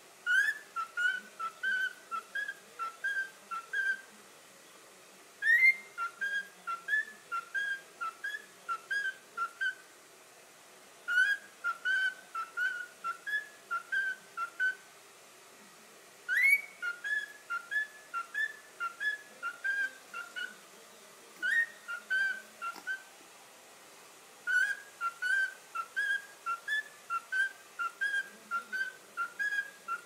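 Cockatiel whistling its song: phrases of eight to ten quick, high whistled notes, several opening with an upward swoop, repeated over and over with short pauses between.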